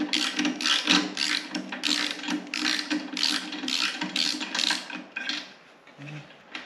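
Ratchet wrench clicking in quick back-and-forth strokes, about three a second, as it unscrews the spark plug from a push lawn mower's engine. The clicking stops about five and a half seconds in.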